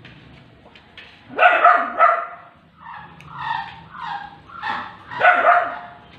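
A dog barking repeatedly, about one or two barks a second, with the loudest barks at about one and a half seconds in and again after five seconds.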